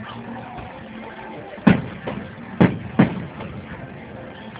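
Aerial fireworks shells bursting: three sharp bangs, the last two less than half a second apart.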